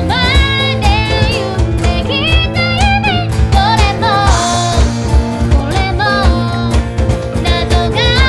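Pop-rock band playing with a sung lead vocal over drums, bass and guitar at a steady beat.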